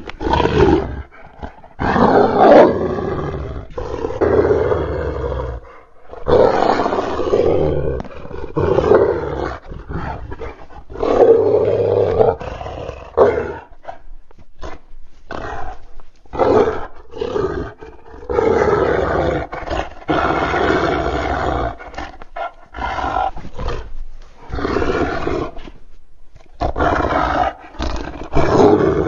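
A string of creature sound effects: roars and growls, one after another, each lasting from half a second to about two seconds, separated by short gaps.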